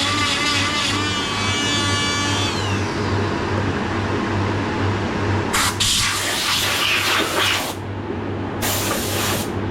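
Background music fading out over the first few seconds, then a steady hiss with two louder hissing bursts later on.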